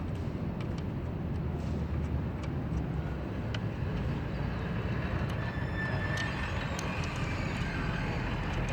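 Steady low background rumble, like traffic, with a few faint small clicks of washers and bolts being fitted to a disc brake caliper.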